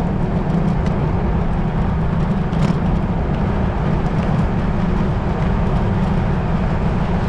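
Wind rumbling steadily over the microphone of a bicycle coasting downhill at speed.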